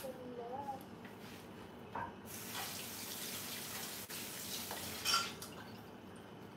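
Kitchen tap running into a stainless steel sink for about three seconds while hands are rinsed under it. A knock sounds just before the water starts, and a louder knock comes near the end as it stops.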